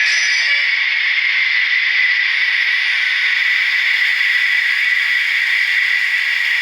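DCC sound decoder in an HO-scale SNCF BB67000 model diesel locomotive, playing a steady hiss of idling engine with cooling fans running. It comes through the model's tiny onboard speaker, so there is no low end.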